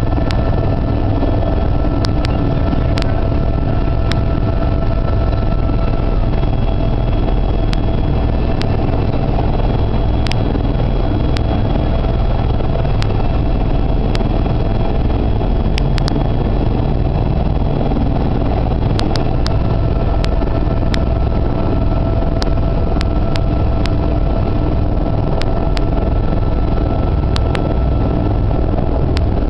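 Steady engine and cabin noise of a small sightseeing aircraft taxiing on the ground after landing. A few faint steady whining tones run over it, with occasional brief clicks.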